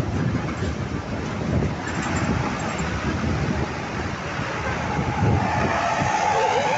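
Road vehicle running along the road, a steady rumble of engine and tyres, with wind buffeting the microphone.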